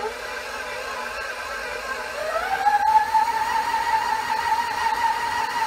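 KitchenAid stand mixer motor whining as its dough hook kneads pizza dough in the stainless steel bowl. The whine rises in pitch about two seconds in and then holds steady, with a single click about a second later.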